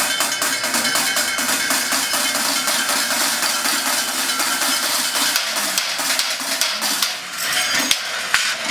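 Drumsticks beating a fast, dense run of strikes on recycled pots, pans and metal scraps, a continuous metallic clatter played as percussion. It briefly thins out about seven seconds in, then picks up again.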